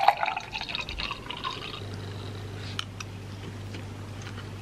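A dark drink poured from a bottle into a tall glass, splashing and filling, the pour ending just under two seconds in. After it a low steady hum remains, with a couple of light clicks.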